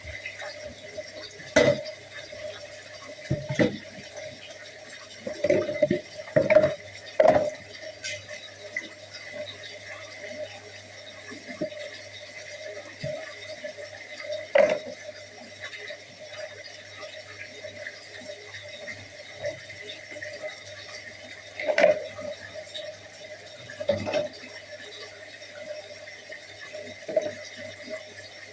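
Tap water running steadily into a sink while dishes are washed, with irregular clinks and knocks of dishes and glassware against each other and the sink.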